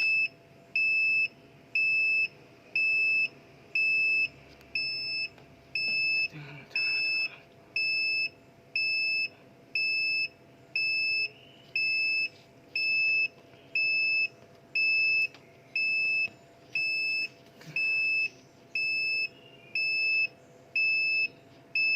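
Reversing-vehicle-style backup beeper: a single high-pitched tone beeping about once a second, each beep about half a second long, evenly spaced and steady.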